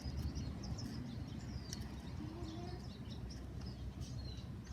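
Faint, scattered bird chirps over a steady low rumble of background noise.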